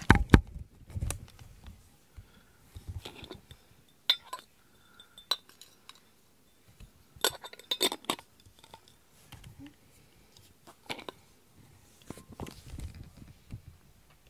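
Glass jar of brushed-out cat fur handled by hand, its lid turned and taken off: scattered clinks and knocks of glass with pauses between them. A dull thump right at the start is the loudest sound.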